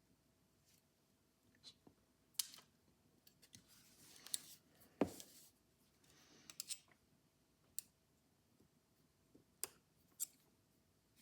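Scattered light clicks and taps of a screwdriver and small metal parts as a Columbia phonograph governor is taken apart, with a short scraping rustle and the sharpest click about five seconds in.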